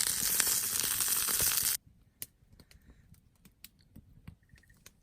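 Food sizzling and crackling in a frying pan, cut off abruptly about two seconds in, followed by a quiet stretch of scattered light clicks and taps.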